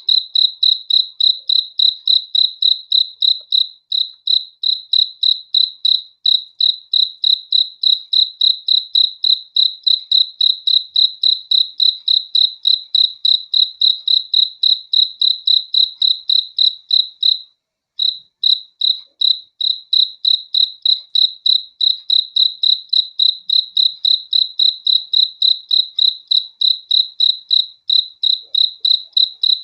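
A cricket chirping steadily, about three evenly spaced chirps a second, with a brief break about two-thirds of the way through.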